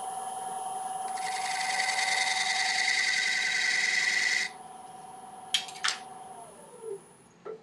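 Wood lathe running with a steady motor whine while a turning tool cuts into the spinning laburnum blank for about three seconds, then lifts off suddenly. Two sharp clicks follow, the lathe's whine falls in pitch as it is switched off and spins down, and a single knock comes near the end.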